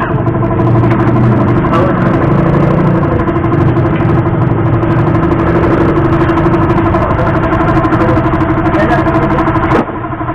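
A motorcycle engine idling steadily, with people talking over it.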